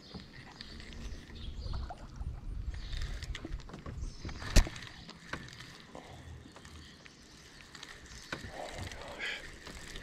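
Spinning reel being cranked to retrieve a lure, with small clicks and ticks throughout. A low rumble runs through the first few seconds, and one sharp click comes about halfway through.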